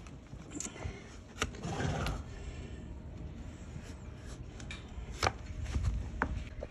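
Flat hoof-trimming blade paring a donkey's hoof against a wooden stool: scraping cuts through the hoof horn, with several sharp clicks and knocks of the blade on hoof and wood.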